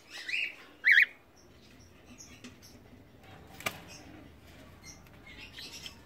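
Cockatiel giving two short, loud calls about half a second apart near the start, followed by faint light pattering and a single sharp click a few seconds in.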